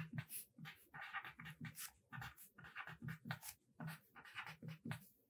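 Pen writing on paper: faint scratching in short strokes, about two a second, as letters and bond lines are drawn.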